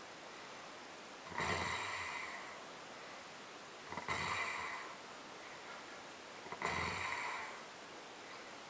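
Person snoring: three snores about two and a half seconds apart, each lasting about a second.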